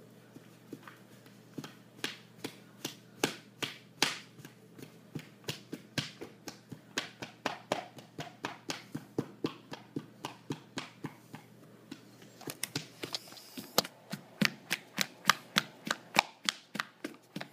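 Typing on a computer keyboard: an irregular run of sharp key taps, about two or three a second, with a brief rustle about twelve seconds in.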